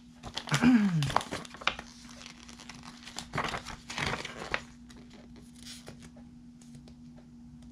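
Pages of a glossy booklet being flipped, rustling and crinkling in two spells, one starting just after the start and another about three and a half seconds in.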